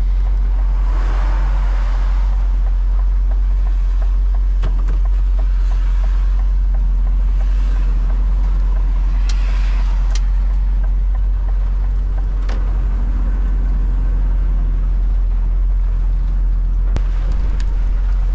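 Truck cab on the move in heavy rain: a steady low drone of engine and wet tyres on the road, with swells of spray and tyre noise from passing traffic about a second in and again around nine seconds.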